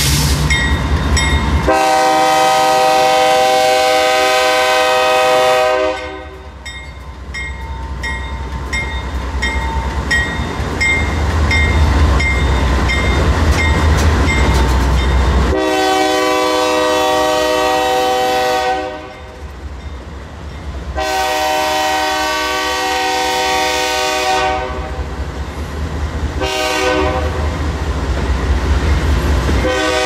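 BNSF diesel locomotive air horn blowing a chord of several notes in repeated blasts: one long, then long, long, short and the start of another long, the grade-crossing warning pattern. Under it a long train of loaded covered hopper cars rumbles by with wheel clatter, and between blasts a high bell-like ding repeats steadily.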